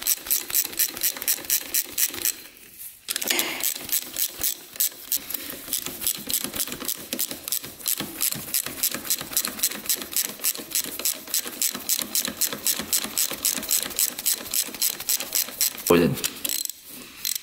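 Socket ratchet wrench clicking in an even run of about six clicks a second, with a short break about two and a half seconds in and another near the end.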